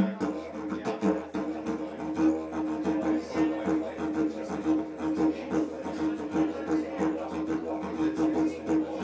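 Wooden didgeridoo played with a steady drone, its loudness pulsing in a quick rhythm.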